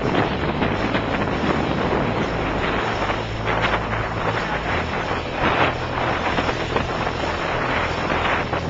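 Wind buffeting the microphone and water rushing past a sailing yacht under way at about 10 knots, in uneven surges.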